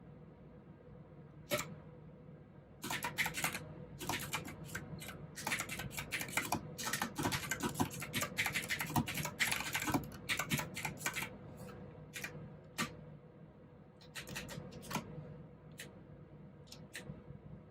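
Typing on a mechanical keyboard with clicky blue switches: a lone keystroke, then a fast continuous run of clacks for several seconds, thinning to scattered keystrokes in the second half.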